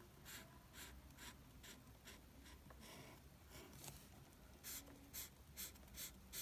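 Felt-tip marker colouring on paper: faint, repeated strokes, about two or three a second, a little louder in the second half.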